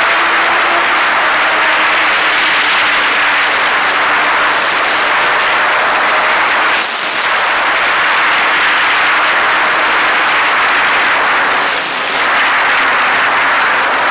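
Steady rush of wind and road noise from a moving vehicle, with a faint engine hum whose pitch slowly sinks. The rush dips briefly twice.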